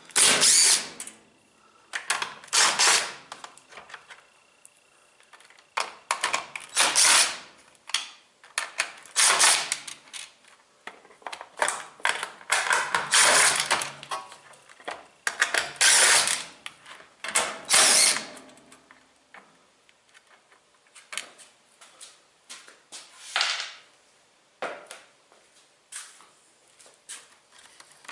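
Power drill run in a dozen or so short bursts, the stronger bursts in the first two-thirds, weaker and sparser after about 20 s.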